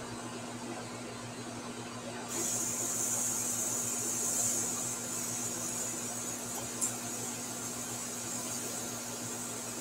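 Airbrush hissing as it sprays, the air starting suddenly about two seconds in and running on, over a steady low hum. One short click about two-thirds of the way through.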